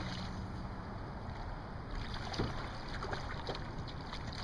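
Wind blowing over the microphone and choppy water around a small boat, with a low steady hum that stops about a second in and a few faint clicks.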